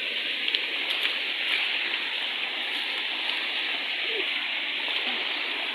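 Steady rushing of water from the stream and small waterfall below, an even hiss with no break.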